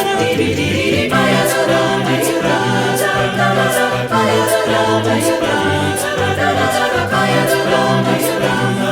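Choir singing chords in close harmony, the chords changing every second or so, with a light high tick keeping time about twice a second.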